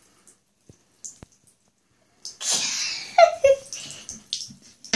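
A sneeze, sudden and loud, about two seconds in: a sharp hissing burst of breath followed by short voiced sounds that fall in pitch. A few faint clicks come before it.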